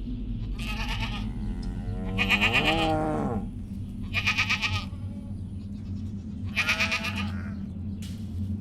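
Sheep and goats bleating: about five separate calls, a longer one with a wavering, sliding pitch about two seconds in, over a low steady hum.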